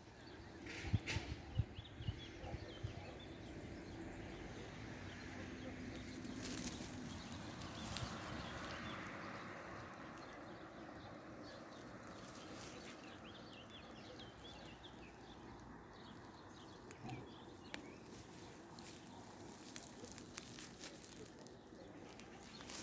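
Faint outdoor ambience with scattered small bird chirps. There are a few knocks in the first seconds, and the background noise swells and fades about a third of the way in.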